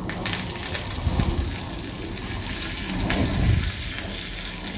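Curry leaves sizzling and crackling in hot ghee in a small tadka (tempering) pan: a steady hiss full of small crackles that starts as the leaves go in.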